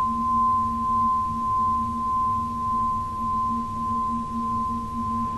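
A steady high pure tone held without decay over a lower hum, its loudness wavering slowly and evenly.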